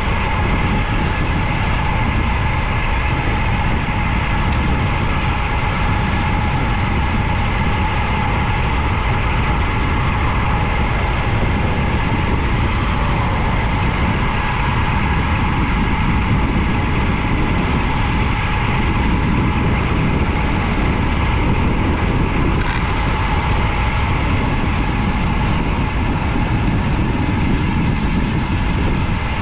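Steady wind noise rushing over the camera microphone during a fast road-bike descent, with a faint steady hum above it.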